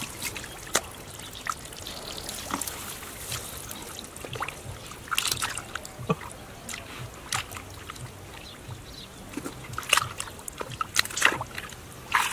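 Shallow muddy water splashing and sloshing as hands grope through mud, with irregular wet splashes and squelches. A few louder splashes come about halfway through and near the end.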